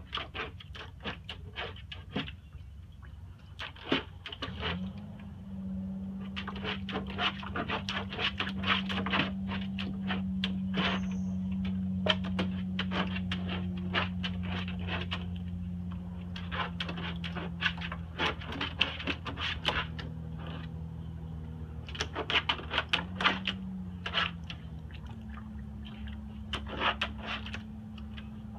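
A puppy's paws slapping and splashing in rainwater pooled in a plastic garbage can lid: quick runs of wet taps and splashes, with pauses between. A steady low hum runs underneath from about five seconds in.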